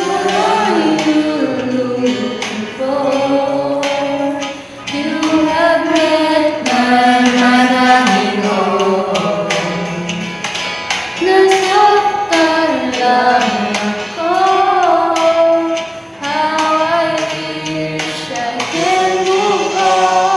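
A Tagalog pop song: a singer's melody of held, gliding notes over a steady drum beat.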